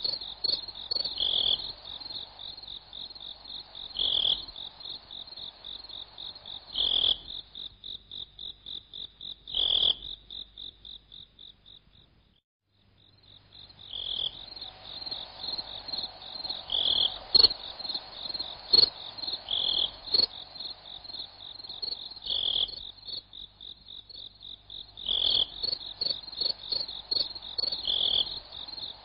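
High-pitched insect chirping: a fast, even run of chirps with a louder chirp about every three seconds. It fades away about twelve seconds in and comes back a second or two later.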